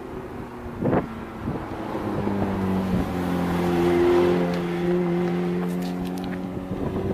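Ferrari F430 Spyder's 4.3-litre V8 running at steady revs, its note growing louder to a peak about four seconds in and then fading. Wind buffets the microphone about a second in.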